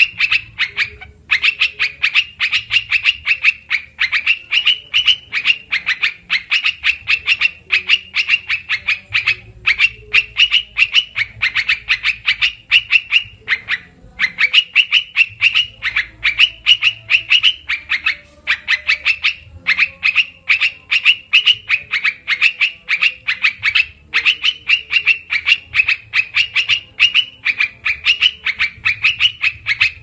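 Bulbul (trukan, merbah belukar) calling nonstop as a bird-lure recording: rapid runs of short, sharp notes in long phrases broken by brief pauses every few seconds.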